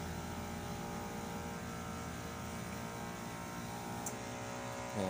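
Small electric mist pump for the misting nozzles running with a steady hum, with a light click about four seconds in.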